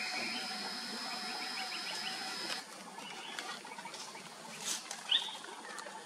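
Forest birdsong: a steady high tone for the first two and a half seconds, a quick run of small chirps, and a short, sharp sweeping bird note about five seconds in, the loudest sound.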